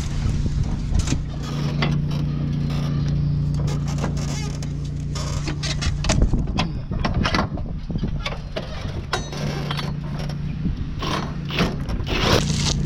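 Small mud-mower engine running steadily under load for about six seconds, then the sound turns uneven, with repeated knocks and clatter, as the mower is worked back out of the mud at the pond bank.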